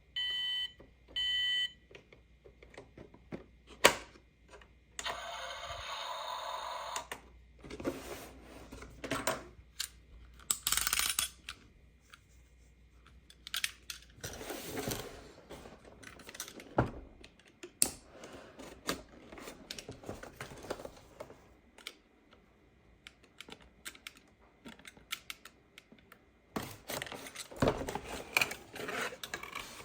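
Hard plastic toys and packaging being handled: scattered clicks, clacks and rattles. A toy's electronic beeps end about a second and a half in, and a short electronic sound effect plays about five seconds in.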